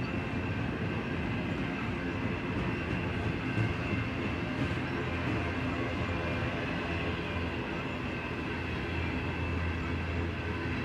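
Double-stack container well cars of a freight train rolling past: a steady rumble of steel wheels on the rails, with a thin high ring held over it.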